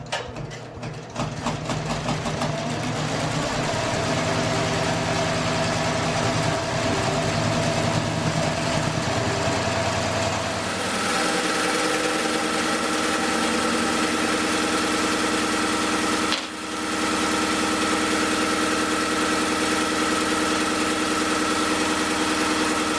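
Multi-needle embroidery machine running a satin stitch around an applique: a loud, steady mechanical running sound. The mix of its hum shifts about eleven seconds in, and it briefly drops out about sixteen seconds in.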